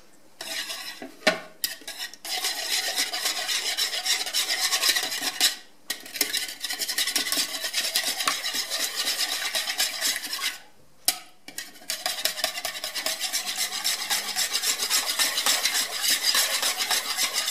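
Wire balloon whisk beating milk, eggs and oil in a plastic mixing bowl: rapid, rhythmic strokes of the wires through the liquid and against the bowl, stopping briefly three times.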